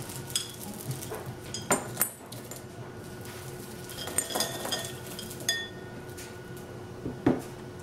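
Wrapped hard candies poured into a glass vase, clinking against the glass in a few separate sharp clinks.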